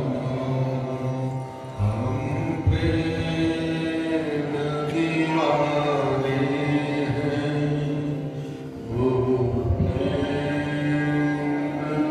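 Male voices chanting a Hindu devotional bhajan to Krishna in long held notes, phrase after phrase, with short breaths of quiet about two seconds in and near nine seconds.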